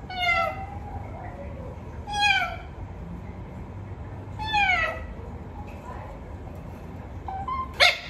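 Pet rose-ringed parakeet calling: four drawn-out calls, each falling in pitch, spaced about two seconds apart. The last, near the end, is sharper and louder.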